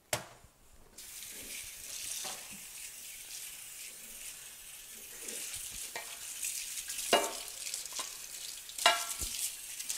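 Kitchen faucet running into the sink while a tub of leftover foam is rinsed out, a steady hiss of water. A click comes right at the start, and two sharp knocks with a short ring come about seven and nine seconds in.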